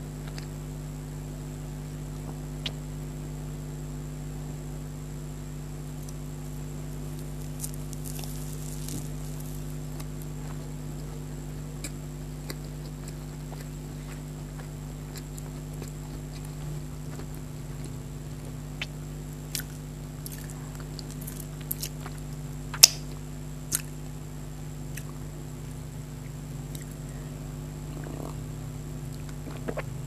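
Close-up chewing and wet mouth sounds of someone eating soft cream pastries, with scattered sharp clicks and taps, the loudest about three-quarters of the way through, over a steady low electrical hum.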